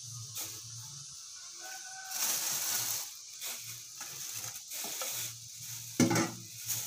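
Hands preparing ingredients: rustling and a run of small clicks and knocks, with a sharp knock about six seconds in.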